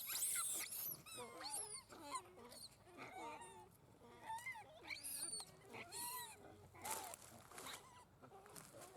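Monkeys giving a run of short, high-pitched squeals, each rising and falling in pitch, one after another with brief gaps. The loudest come at the start, and there is a harsher, rougher call about seven seconds in.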